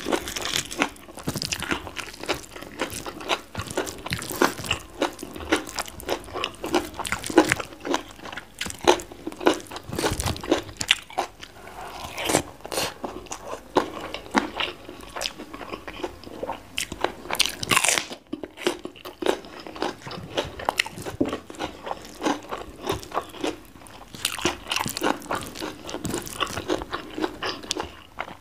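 Close-miked eating: repeated crisp crunching bites and chewing of raw vegetables, including a raw bitter melon, eaten with rice and chili sambal.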